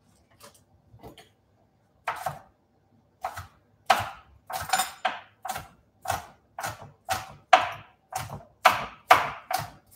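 A kitchen knife chopping spring onion on a cutting board. The first knocks are spaced out, then they settle into a steady pace of about two a second.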